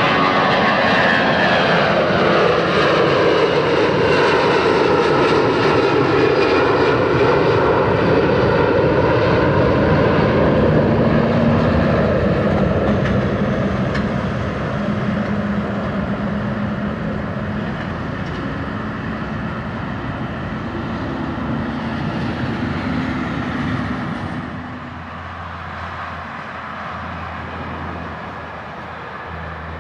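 Four-engined Airbus A340 jetliner climbing out at take-off power: a loud jet roar with whining engine tones that slide down in pitch as it passes and then slowly fade as it climbs away. Near the end the sound drops suddenly to a quieter, steady jet sound of an A340 on approach.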